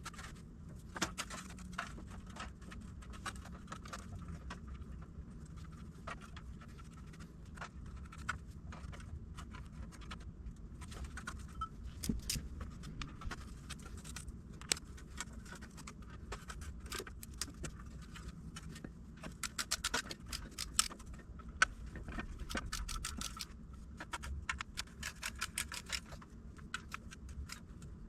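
Metal clinks, taps and rattles of tools and engine parts being handled while a torque converter is lined up with the flywheel, in scattered short clicks that come in quicker runs near the end.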